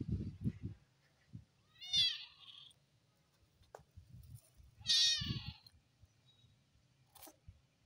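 Kitten meowing twice, two high-pitched cries about three seconds apart, with faint low rumbling on the microphone in between.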